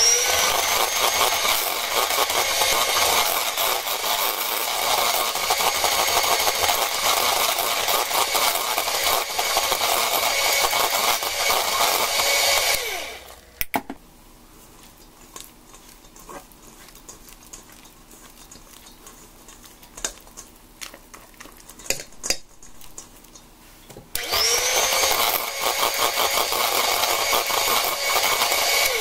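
Electric hand mixer whisking softened cream cheese and melted chocolate in a stainless steel bowl. It runs steadily for about thirteen seconds, spinning up at the start and winding down. After a quieter stretch with a few light clicks it starts again about 24 seconds in and stops at the end.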